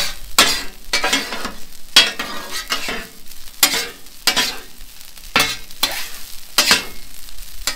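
Metal spatulas scraping and turning rice across a steel flat-top griddle in repeated strokes, about one every half second, with butter sizzling under the rice between strokes.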